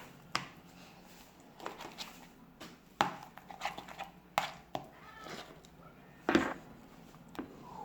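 Slime of glue and shaving foam being mixed in a bowl: irregular knocks and clicks, a few louder ones about three, four and six seconds in.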